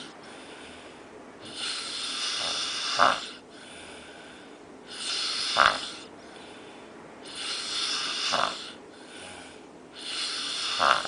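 A sleeping man snoring: four long snores roughly every two and a half to three seconds, each swelling and ending in a short, louder peak, with quieter breathing between them.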